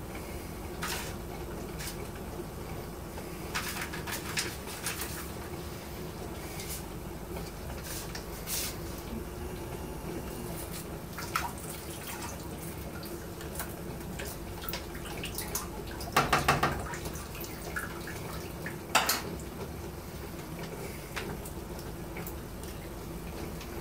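Kitchen handling sounds while liquid yeast is added to a mead must: scattered clicks, taps and knocks of containers, with some liquid trickling and dripping, over a steady low hum. A short burst of rattling clatter comes about two-thirds of the way through, and a single sharp knock follows a few seconds later.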